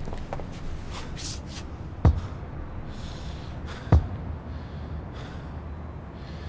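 Hard, gasping breaths and rustling, broken by two loud, sharp thumps about two seconds apart.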